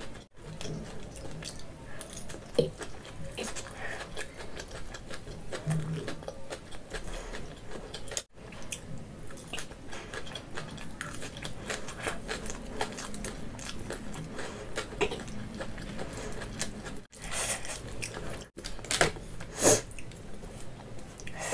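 A person chewing and biting noodles close to the microphone: a steady run of short mouth clicks and soft crunches.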